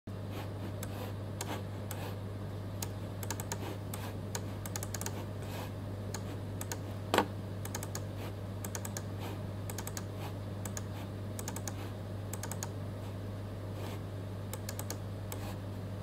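Repeated clicks of a white wired computer mouse's left button, quick and irregular, some in pairs, over a steady low electrical hum. One louder knock about seven seconds in.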